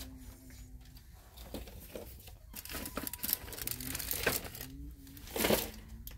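Scattered rustling and clicks of handling noise. The loudest is a rustle a little past five seconds in.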